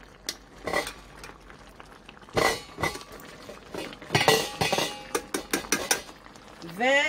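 A metal fork and spatula clinking and scraping against a stainless steel pan of stew, in short irregular clatters, busiest about four to five seconds in.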